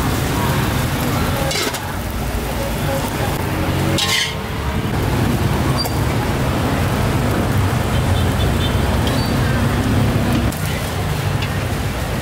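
Busy street ambience: a steady rumble of traffic with voices in the background, and a few light knocks or clinks.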